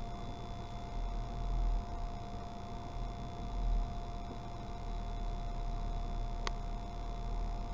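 Low rumble inside a car cabin as the car creeps along slowly, with a steady thin whine over it and a single sharp click about six and a half seconds in.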